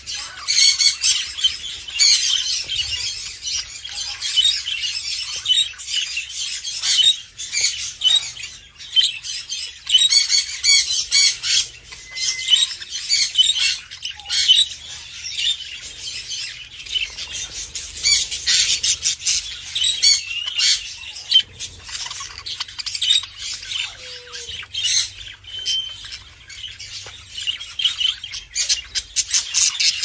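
Budgerigar chicks begging with rapid, high-pitched chirps and squawks while a parent budgie feeds them.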